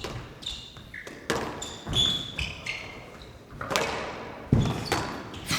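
Squash rally: the ball is struck hard and smacks off the court walls about five times, with court shoes squeaking on the floor between the shots.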